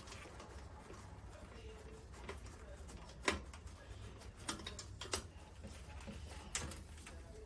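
A few light clicks and taps from a stubby Phillips screwdriver working a screw out of a hose clamp, the sharpest about three seconds in, over a low steady hum.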